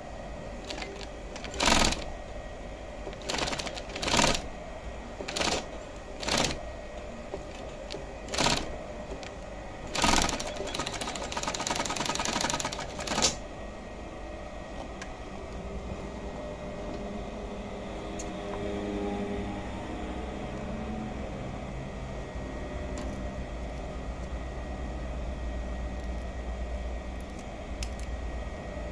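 Union Special 35800 feed-off-the-arm industrial chainstitch machine sewing a double seam in denim, in about six short stitching bursts followed by a longer run of about three seconds. After that the machine stops, leaving a low steady hum.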